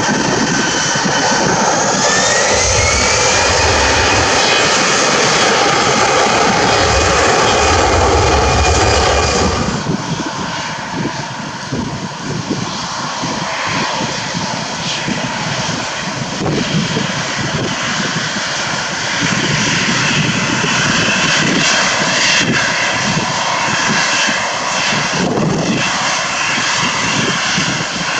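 Jet airliner engines at takeoff thrust, with a whine rising in pitch over the first few seconds as the engines spool up. About ten seconds in the sound changes abruptly to a slightly quieter, rough jet noise without the whine.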